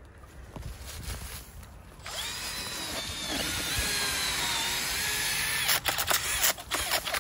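Makita cordless drill spinning a homemade core drill, a hole saw lengthened with sewer pipe, into the soil to cut out the crown of a ground asparagus fern. The motor starts about two seconds in, whines for about three and a half seconds with its pitch shifting as the cutter bites in, then stops, followed by a few sharp clicks and knocks.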